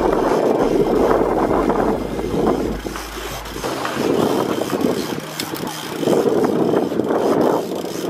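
Wind on the microphone and water washing against a boat at sea, in uneven surges, with a low steady hum that stops about halfway through.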